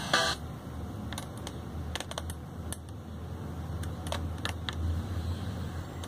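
Music from a Pioneer DEH-1280MP car stereo cuts off as the unit is switched off, leaving a low steady hum. Scattered short clicks of its front-panel buttons and knob being pressed follow, about ten in all.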